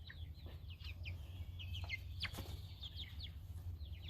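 Six-week-old Cochin chicks peeping: a run of short, high chirps that slide down in pitch, several a second, over a steady low hum.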